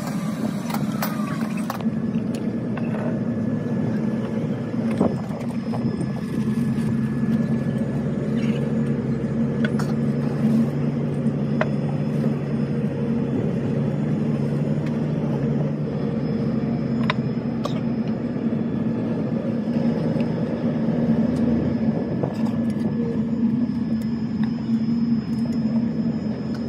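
A machine running steadily: an even low hum with a few sharp clicks scattered through it.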